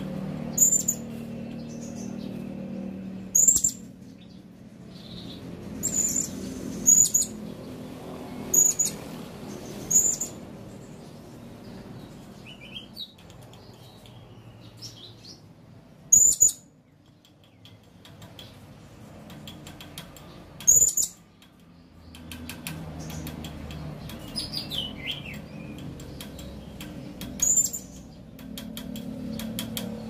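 Male blue-crowned hanging parrot (serindit) giving short, shrill, very high-pitched calls, about nine at uneven gaps of one to six seconds, with a few softer falling whistles between them. A steady low hum runs underneath.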